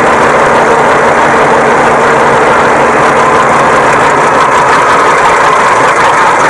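New Holland 3630 tractor's diesel engine running steadily under load, pulling a heavily loaded trailer.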